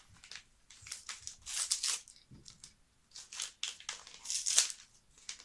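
Wrapping on a small gift package being torn and crinkled open by hand, in several short rustling bursts.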